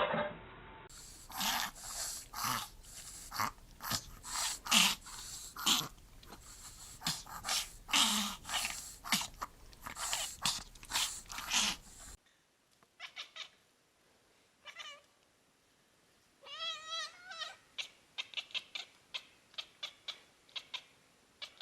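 Cat vocal sounds: a run of short, rapid, noisy cries, then after a cut a few faint clicks and one wavering cry.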